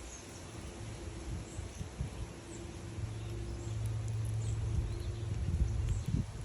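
Outdoor ambience at a bird feeder: faint, scattered chirps of small birds over a steady low hum and some low rumbling.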